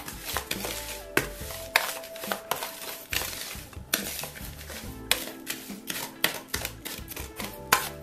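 A metal spoon stirring coarse salt and ground spices in a bowl, scraping through the grains and clicking irregularly against the bowl.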